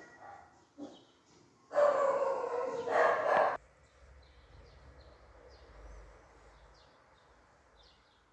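An animal's two drawn-out, pitched calls close together about two seconds in, followed by faint short high chirps.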